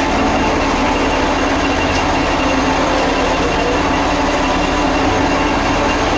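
X 2200-series diesel railcar running along the line, heard from inside the carriage: a steady engine drone mixed with the rolling noise of wheels on rail.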